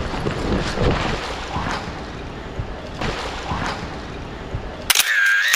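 Rushing wind and movement noise on the microphone. Near the end a short warbling electronic tone cuts in, and the sound then stops dead.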